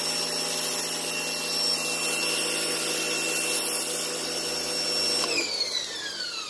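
Portland electric pressure washer's motor and pump running steadily under load, with the hiss of water spraying from the wand. About five seconds in the trigger is released and the motor winds down with a falling whine.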